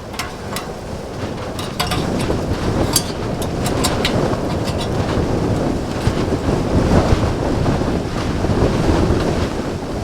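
Blizzard wind rushing and buffeting the canvas tent, with scattered sharp crackles.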